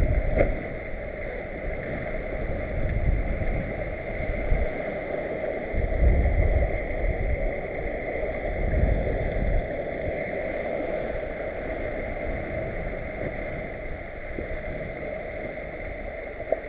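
Water rushing and gurgling along the hull of a Mini 650 racing sailboat making about 9 knots under spinnaker, with louder low rumbling surges now and then.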